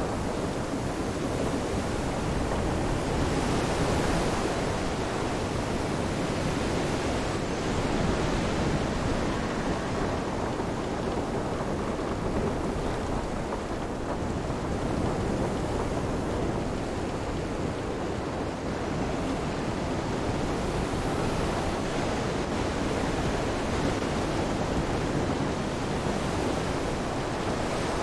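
Storm ambience: a steady wash of wind and rain, swelling and easing a few times.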